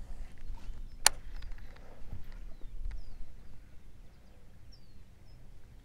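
Open-water marsh ambience with a low rumble, one sharp click about a second in, and a few faint, short, chirping bird calls after it.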